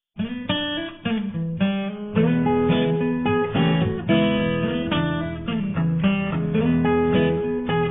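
Acoustic guitar music, plucked notes and strummed chords changing every fraction of a second, with a dull, muffled top end.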